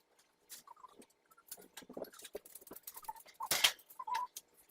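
Scattered light clicks and knocks of kitchen handling, with one louder sharp knock about three and a half seconds in.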